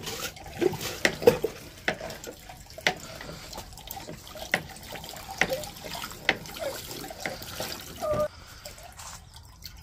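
Water gushing and splashing from the hand pump of a Step2 Pump & Splash water table into its basin, with irregular splashes and drips, easing off near the end.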